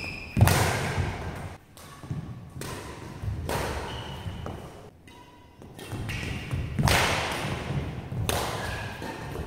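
Badminton rackets striking a shuttlecock in a rally: about six sharp hits roughly a second apart, the first the loudest, each echoing in a large hall. Players' feet thud on the court between shots.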